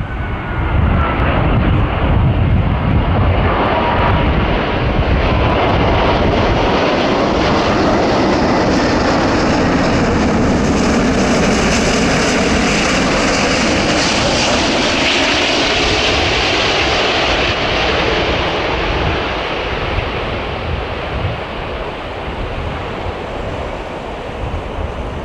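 British Airways Airbus A380 on final approach, its four jet engines giving a loud, steady rushing noise that swells as the airliner passes close by and fades over the last few seconds.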